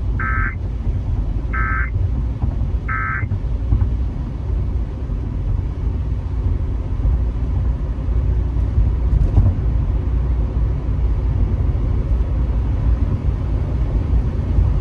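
Emergency Alert System end-of-message data burst: three short buzzy, warbling two-tone bursts, about a second and a half apart, marking the close of the required monthly test. A steady low rumble follows for the rest of the stretch.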